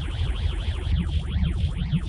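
Experimental electronic noise music: a dense, steady low drone with many quick rising and falling sweeps criss-crossing above it.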